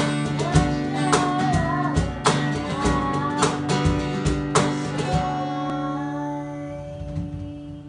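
Acoustic guitar strummed in sharp, regular strokes while a woman sings. Her singing breaks off a few seconds in, where she has forgotten the lyrics. The strumming stops about five seconds in and the last chord rings out and fades.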